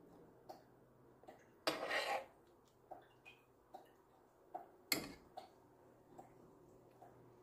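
Metal serving spoon scraping and knocking against a skillet and plate while stew is served onto rice: a short scrape about two seconds in, a sharp clink about five seconds in, and a few light ticks.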